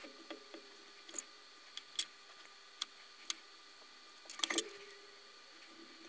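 Scattered small clicks and light taps from soldering fine wires onto a 3.5 mm headphone jack, with a small cluster about four and a half seconds in, over a faint steady hum.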